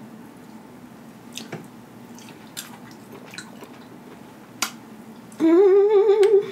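Faint clicks and squishes of snow crab leg meat being picked from the shell by hand, then about five seconds in a woman hums one loud, wavering note for about a second.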